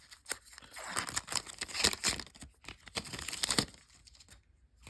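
Trading-card booster pack wrapper being torn open and crinkled: a run of irregular sharp crackles that dies away about three and a half seconds in.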